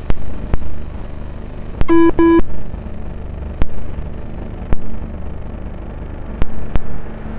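Two short electronic buzzer beeps in quick succession about two seconds in, over a steady low rumble broken by sharp, irregular clicks.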